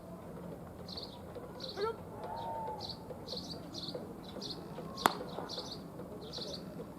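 A single sharp pop of a pitched baseball landing in a catcher's mitt about five seconds in, over steady, repeated high chirping in the background.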